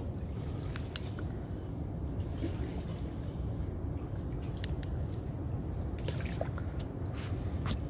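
Water trickling and lapping against a small boat's hull as it moves slowly, over a steady low rumble, with a few faint clicks and knocks and a thin steady high tone.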